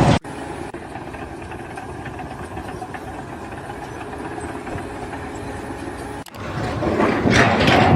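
An engine running steadily at an even pitch. About six seconds in it cuts abruptly to a louder, rougher noise.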